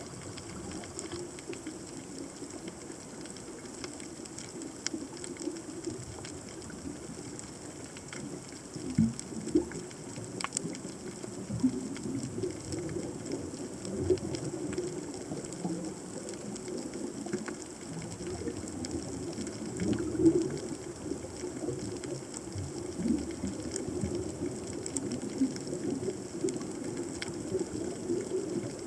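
Underwater ambience picked up by a submerged camera: a steady, fluctuating low rumble of moving water with scattered faint clicks, and a few louder low knocks about nine and twenty seconds in.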